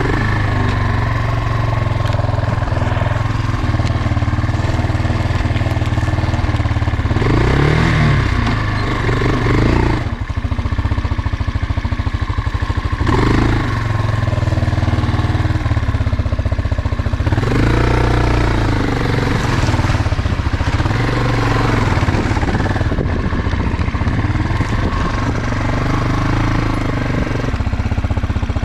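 Motorcycle engine running under way on a forest track, the revs rising and falling several times as the throttle is opened and closed.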